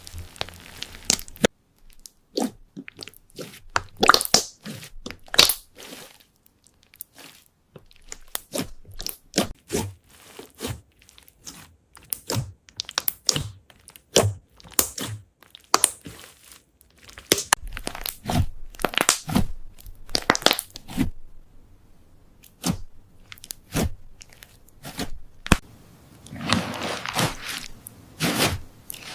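Slime being squeezed and pressed by hand, making irregular crunching and crackling clicks, with a dense run of crackling near the end.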